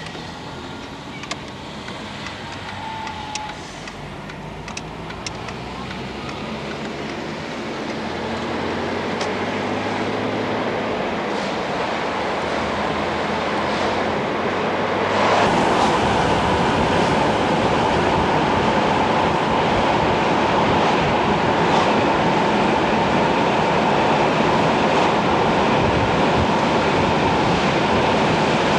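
Car engine running with tyre and wind noise, heard from inside a moving car. The engine hum shifts in pitch. About halfway through, the sound jumps to a louder, steady rushing noise with a faint whine.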